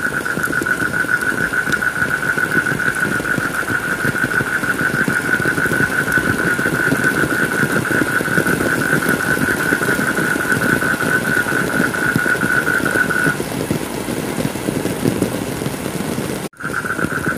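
Heavy rain falling steadily, with a steady pulsing buzz above it that stops about 13 seconds in. Near the end the sound cuts out for an instant, then the rain and the buzz come back.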